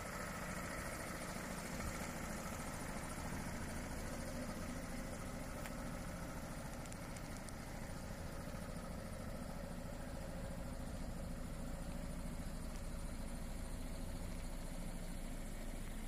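Opel Movano box van's diesel engine idling steadily.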